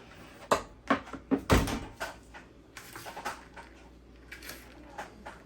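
Hands turning over seasoned ground meat in a large container: a quick run of knocks and thuds against the container, the heaviest about a second and a half in, then a few lighter clicks.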